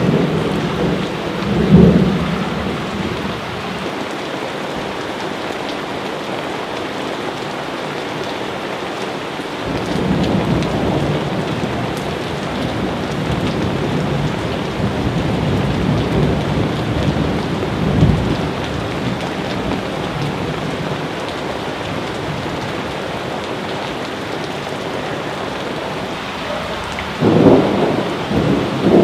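Steady heavy rain with rolls of thunder: a low rumble about two seconds in, a longer swell of rumbling from about ten seconds in peaking around eighteen seconds, and more rumbles near the end.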